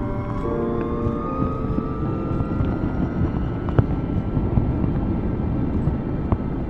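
LiveWire S2 Del Mar electric motorcycle under way: the motor's high whine rising slowly in pitch as it gathers speed, over a steady rush of wind and road noise.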